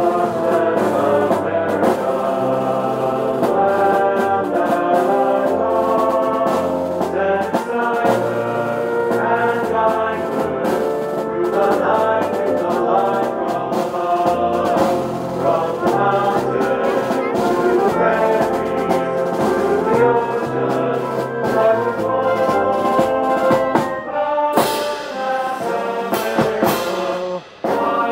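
Brass marching band playing a tune in the open, with a sousaphone carrying a stepping bass line under the higher brass. The sound drops out for a moment near the end.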